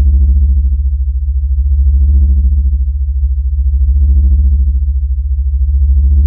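Electronic synthesizer drone: a loud, steady deep bass hum with a higher tone that swells and fades about every two seconds.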